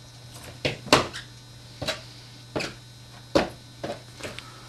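Toddler's footsteps in new trainers on a tiled floor: a series of sharp, irregularly spaced taps, about eight of them.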